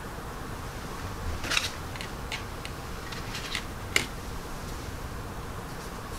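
Light clicks and taps of small plastic model parts and a paintbrush being handled on a workbench: a small cluster about one and a half seconds in, a few lighter ticks after, and one sharp tap at about four seconds, over a steady faint hum.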